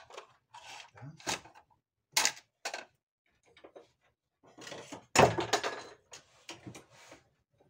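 Irregular clatters and knocks of hand tools being handled and rummaged through, the loudest about five seconds in, while a hand tool is sought to knock out a stuck tapered pin.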